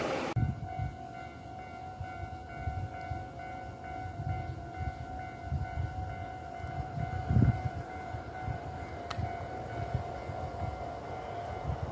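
A passing train's running noise cuts off abruptly a moment in. Then faint outdoor ambience follows: irregular low rumbles of wind on the microphone under a thin steady whine, with one short click about nine seconds in.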